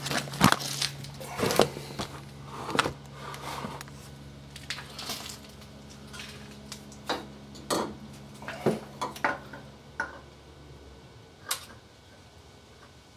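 Irregular clinks, knocks and rustling of parts and a rag being handled during an oil-filter swap, over a steady low hum that stops near the end.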